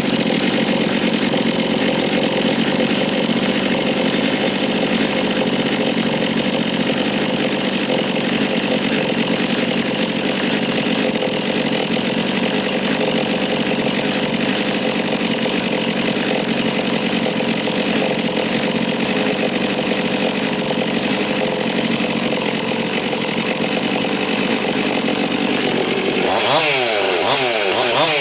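Stihl MS 362 two-stroke chainsaw with a dual-ported Buckshot test muffler, running loud at a steady high speed, then revving up and down repeatedly near the end.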